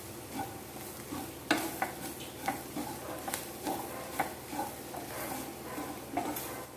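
A spatula scrapes a pan in irregular strokes, about two a second, as onions and spice powders sizzle in coconut oil. The masala is being sautéed until its raw smell is gone.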